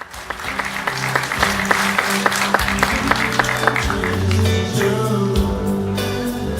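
Music with a steady beat and held bass notes.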